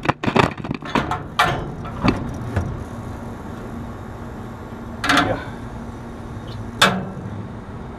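Metal clanks and knocks as a replacement hermetic AC compressor is lowered into the condenser cabinet and set onto its mounts: a cluster of bangs in the first couple of seconds, then two single knocks about five and seven seconds in, over a steady low hum.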